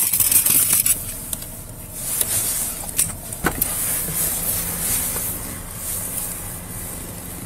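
Steady hum inside a patrol car's cabin, with a few light clicks and knocks as the in-car equipment and controls are handled.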